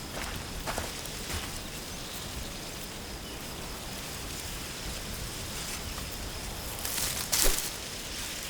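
Outdoor countryside ambience: a steady faint hiss with a thin, steady high insect-like tone, like crickets. A couple of soft footsteps fall in the first second and a half, and a louder rustle comes about seven seconds in.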